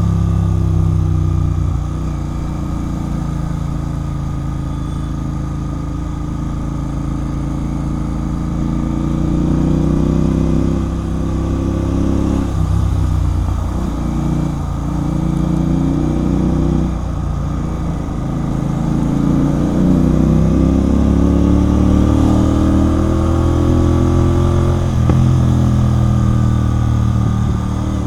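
Royal Enfield Continental GT 650's 648 cc parallel-twin engine through a Red Rooster aftermarket exhaust, riding under way. The note rises and falls with the throttle, with several short breaks and drops in pitch around the middle and a sudden drop near the end.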